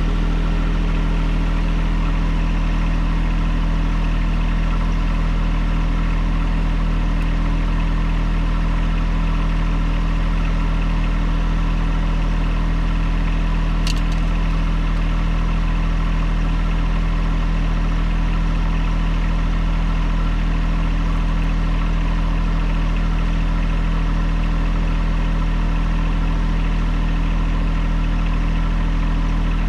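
An engine running steadily at constant speed, with a single short tick about halfway through.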